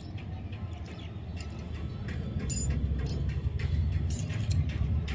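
Small stainless-steel toy kitchen utensils clinking lightly, several times, as two miniature slotted spoons are handled and set down on concrete, over a low rumble that grows louder toward the end.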